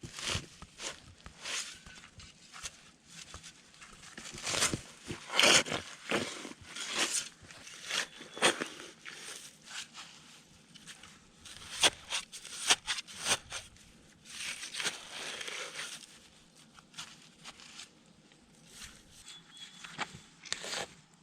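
A shovel cutting into and scraping waterlogged clay soil in irregular strokes, the loudest about five seconds in.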